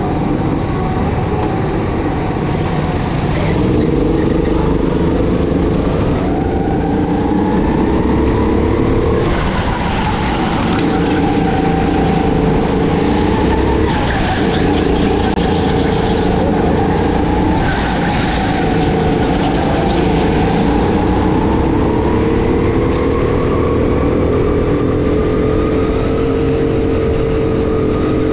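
Go-kart engine heard from on board, its pitch repeatedly climbing and then dropping away as the kart accelerates and slows around the track.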